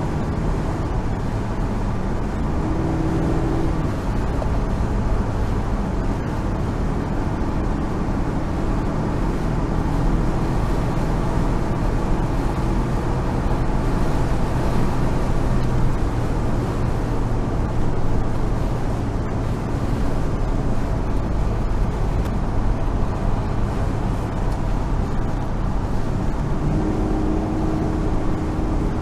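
1970 Chevrolet Monte Carlo's V8 engine running steadily at freeway cruising speed, with wind and tyre noise.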